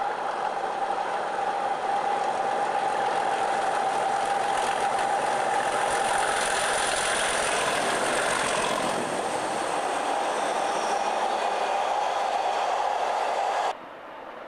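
Pair of Class 37 diesel locomotives running past with a steady whistling engine tone, followed by the rattling clatter of empty intermodal flat wagons over the rail joints. Near the end the sound cuts off suddenly to a much quieter rumble.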